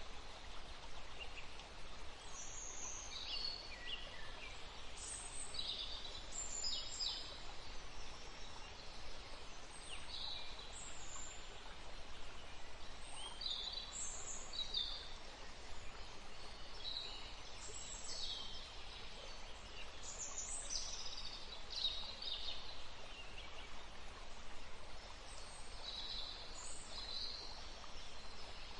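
Woodland stream flowing steadily, with small birds chirping often in short, high calls over it.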